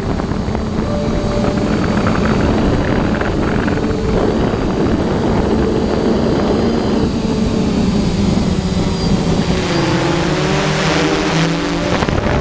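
FPV drone's electric motors and propellers whirring, heard close up from the onboard camera, their pitch shifting up and down with the throttle, over a steady thin high whine and a rush of air.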